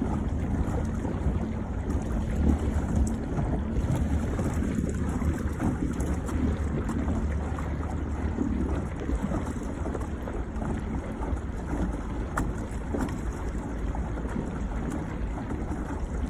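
Steady wind buffeting the microphone in an open kayak, a low rumble over the wash of choppy lake water.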